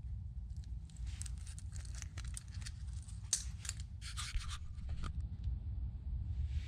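Handling noise: a run of short scratches, rustles and sharp clicks, busiest in the middle, over a steady low rumble.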